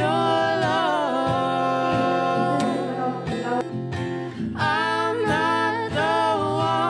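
Background music: a song with a singing voice over plucked guitar, easing off briefly about halfway through.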